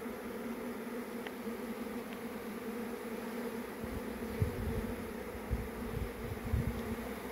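Honey bee swarm buzzing: a steady, continuous hum of many bees' wings, with a few dull low thumps in the second half.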